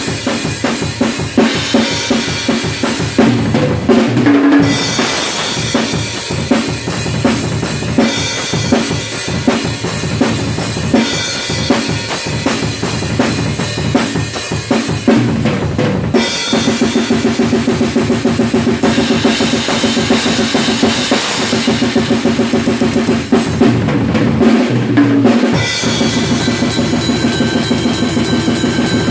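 Acoustic drum kit played hard in death-metal style: fast snare, tom and bass drum strokes with cymbal crashes, including a Paiste Rude cymbal. About halfway through it settles into a long stretch of very fast, even strokes, and does so again near the end.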